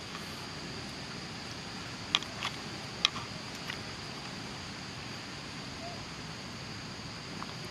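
Steady, high-pitched drone of insects in forest undergrowth, with a few sharp clicks, the two loudest about two and three seconds in.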